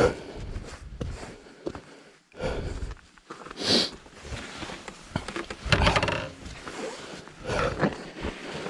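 A person breathing hard and grunting with effort in irregular bursts, with scuffing footsteps on loose stones and knocks, while heaving a fallen, heavily loaded adventure motorcycle back upright.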